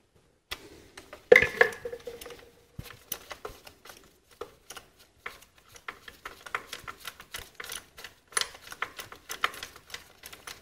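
Light, irregular metallic clicks and taps of a spark plug socket and extension being handled and lifted out of the spark plug well, with one louder ringing metal clink about a second and a half in.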